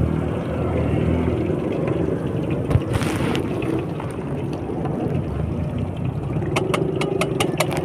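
Street traffic running steadily, with engine rumble, mixed with oil bubbling in a frying wok. A brief hiss comes about three seconds in, and a quick run of about eight sharp clicks near the end.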